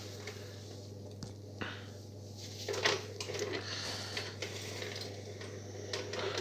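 Scattered light clicks and rattles from the repaired long-handled cleaning brush being tried out, over a steady low hum.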